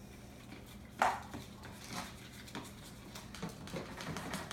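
Small clicks and clatter of containers and utensils handled on a tabletop, with one louder knock about a second in.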